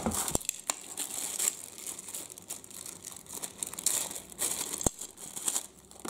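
Clear plastic packaging bags crinkling in irregular bursts as hard plastic parts are handled and lifted out of a box, with a few sharp clicks of plastic knocking on plastic.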